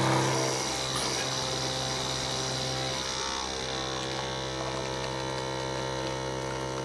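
De'Longhi Nespresso Essenza Mini's pump humming steadily as it pushes water through a capsule to brew an espresso; pretty quiet for an espresso machine.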